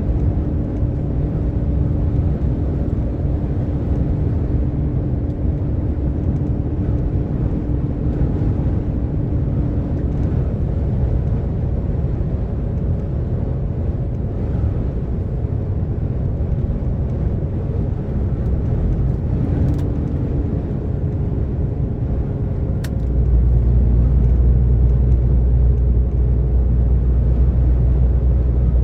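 DAF XF 460 truck's six-cylinder diesel engine and road noise while driving at motorway speed, a steady low rumble. About two-thirds of the way through it turns suddenly louder and deeper.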